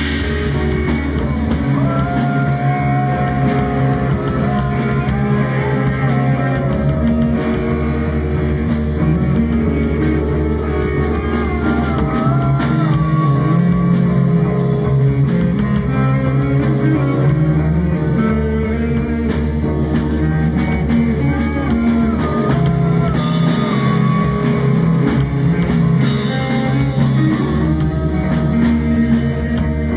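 Improvised instrumental jam over a drone: low sustained tones hold steady underneath while a melody line wanders and bends in pitch above them.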